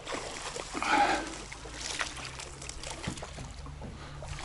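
Water sloshing and trickling around a small river boat, with a few light knocks.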